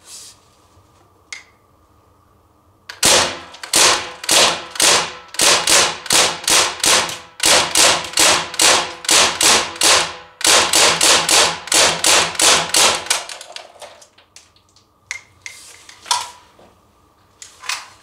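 CO2-powered replica Thompson M1A1 BB submachine gun fired on single shots in quick succession, about three sharp cracks a second for some ten seconds, with two short breaks. A few softer clicks of handling come before and after the string.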